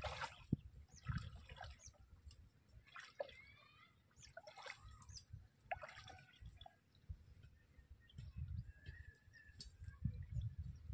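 Scattered water drips and small splashes, irregular short plinks.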